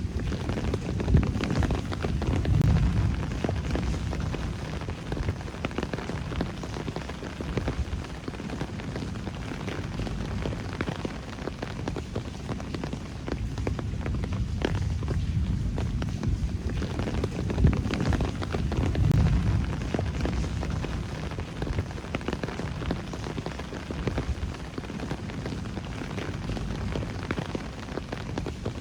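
Steady rain recorded on a phone, with many separate drop hits over a constant hiss. A low rumble swells twice, about a second in and again about two-thirds of the way through.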